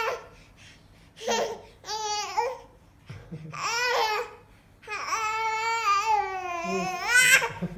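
A baby's happy babbling: a few short high-pitched calls, then one long drawn-out one from about five seconds in whose pitch rises at the close.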